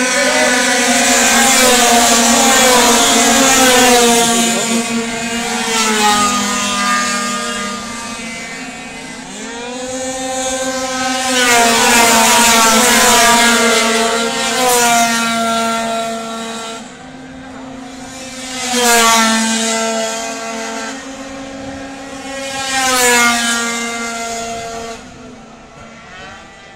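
A field of two-stroke racing scooters passing by on a circuit, their high-revving engines whining and rising and falling in pitch as they accelerate and back off. The sound swells in several waves as riders go past, then fades near the end.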